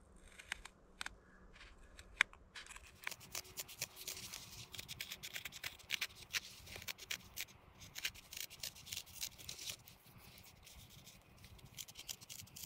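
Scissors snipping through a stove jack sheet, cutting out the round hole for the stovepipe: a run of short snips, sparse at first, then quick and close together through the middle, thinning out near the end.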